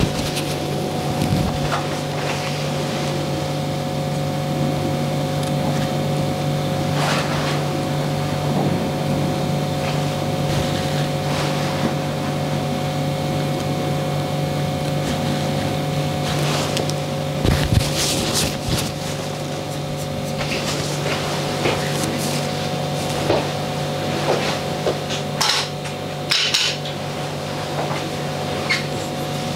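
Small barber's scissors snipping a moustache trimmed over a comb: scattered short, crisp snips and brushing sounds at irregular intervals, over a steady low hum.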